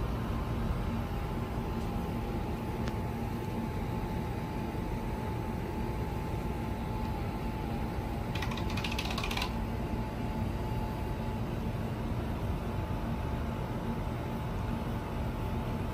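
A razor scraping over a soaped scalp during the final smoothing pass of a head shave, over a steady hum, with a brief crackly scrape about eight to nine seconds in.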